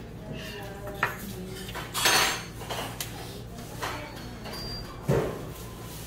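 Metal spoons and chopsticks clinking and scraping against bowls and stone pots at a meal table: a few sharp clinks, the loudest about five seconds in, and a short scrape about two seconds in.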